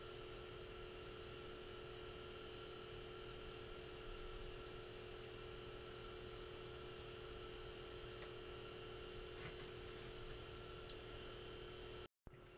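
Steady electrical hum made of several fixed tones, with a few faint clicks late on; the sound drops out completely for a moment near the end.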